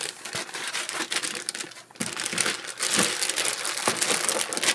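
Plastic protective bag crinkling and rustling as hands handle it, with a brief lull about two seconds in.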